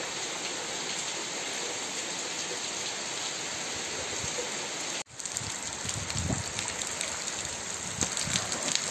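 Heavy rain falling steadily on wet ground, a constant hiss of rain. The sound cuts out for an instant about five seconds in, then returns with more uneven drips and splashes.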